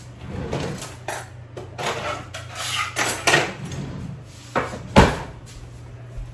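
Kitchen handling sounds: dishes and a cupboard being handled, with rustling and clatter and one sharp knock about five seconds in.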